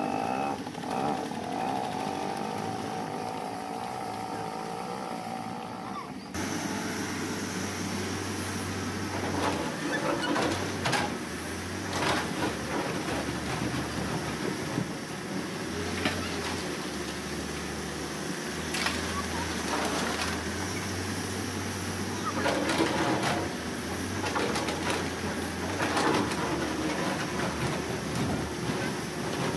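Halla 130W wheeled excavator's diesel engine running under load while its bucket scrapes and scoops broken concrete, with repeated knocks and clanks of rubble. The sound changes abruptly about six seconds in.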